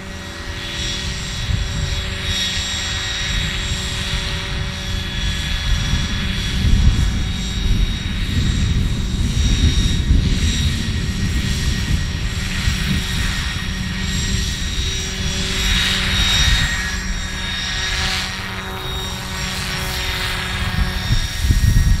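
Large-scale Hughes MD500D radio-controlled helicopter flying low past: a steady high whine over the chop of its rotor blades, swelling and fading as it passes close several times.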